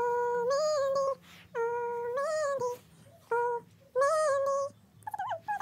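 A person humming a slow tune in short repeated phrases: each a held note that steps up and falls back, with short pauses between. Near the end a brief, wavering, higher-pitched vocal sound starts.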